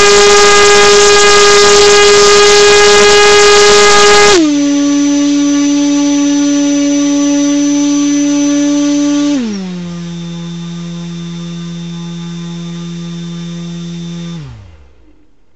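Brushless 2206 2150kv motor spinning a 6x4.5 propeller on a thrust test stand, driven by a LittleBee 30A ESC: a loud, steady whine that drops in pitch and loudness in two steps as the throttle is stepped down, then winds down to a stop near the end.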